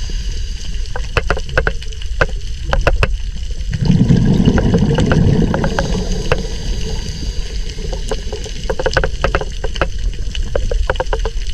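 Underwater sound of scuba diving: scattered sharp clicks over a steady background, and about four seconds in a loud rush of bubbles lasting around two seconds, typical of a diver exhaling through a scuba regulator.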